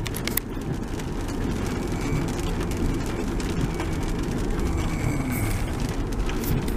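Car driving on a rain-wet road, heard from inside the car: a steady low rumble of road and tyre noise, with a few sharp ticks near the start and again near the end.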